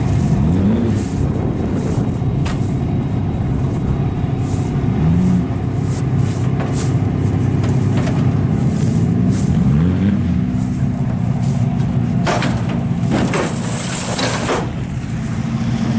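Demolition derby car engines running loudly, one revved up and down several times. Near the end comes a short burst of hissing.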